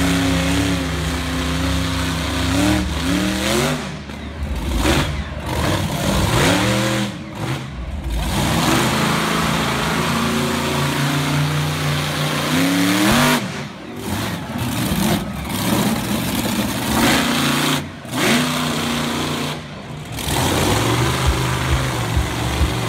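Monster truck engine revving hard, the revs climbing several times and falling away between, with sudden dips in level as it comes off the throttle.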